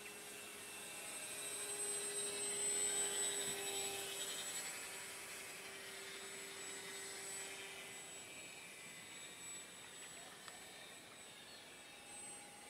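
Electric RC glider's 2212 2200kv brushless motor and propeller whining in flight, swelling to its loudest about three seconds in and then fading away.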